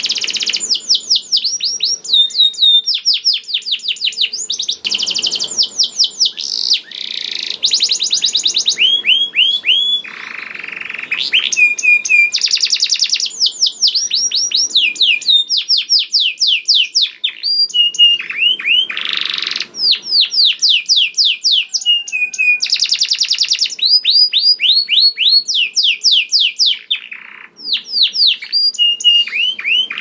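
Domestic canary singing a continuous high-pitched song of rapid trills and rolls, switching to a new repeated phrase every second or two.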